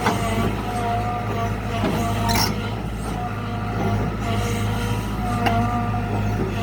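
Kobelco SK120 excavator's diesel engine running steadily under work, with a higher whine that comes and goes. Three sharp knocks fall at the start, about two and a half seconds in, and near the end.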